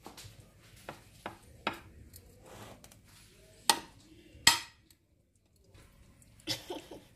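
A metal spoon clinking and knocking against a baking dish of seasoned flour. The clicks are scattered, two loud clinks come about four seconds in, and a short cluster of knocks follows near the end.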